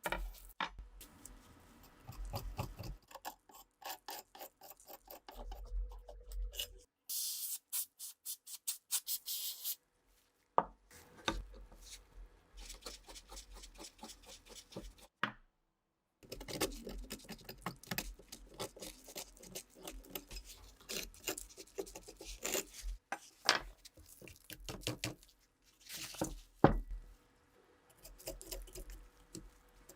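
Hand tool scraping and rubbing on a Mosin rifle part in repeated back-and-forth strokes, in short takes broken by brief silences. About a quarter of the way in there is a quicker run of high, hissy scratching strokes.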